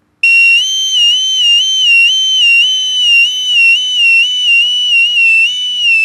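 Boatswain's call (bosun's pipe) sounding the warble: a shrill, high whistle whose pitch flips back and forth between two notes about twice a second, made by opening and closing the hand over the pipe's bowl. This canary-like warble is one of the four basic sounds of the call.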